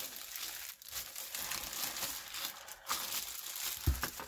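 Clear plastic wrap crinkling as it is pulled off a rolled diamond-painting canvas and crumpled in the hand, with a single thump near the end.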